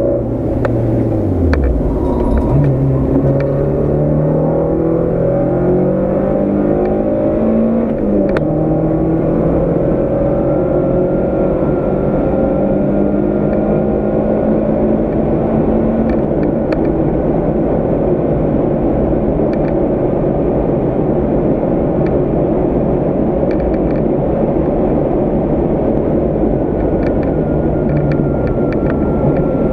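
Volkswagen Golf MkII GTI 16v's four-cylinder engine under hard acceleration, heard from inside the cabin: after the revs fall at the start it winds up through a gear, shifts up about eight seconds in, then climbs more slowly and holds steady at high revs.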